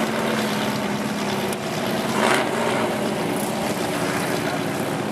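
Lifted Chevrolet mud truck's engine running loud and steady as it crawls through a mud pit on giant mud tires, with a brief rush of noise about two seconds in.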